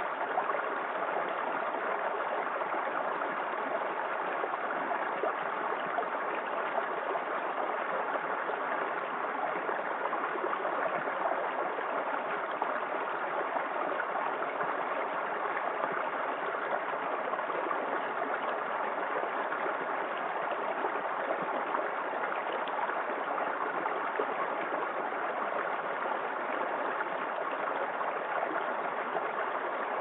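A small shallow stream flowing over stones, a steady, even rush of running water.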